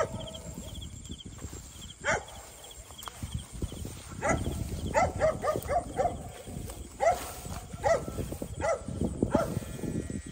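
A sharp knock, then a series of short animal calls, each falling in pitch: one, a quick run of about six, then several more spaced out. Under them are rustling and footsteps through leafy plants, and a faint, fast, pulsing high trill of night insects.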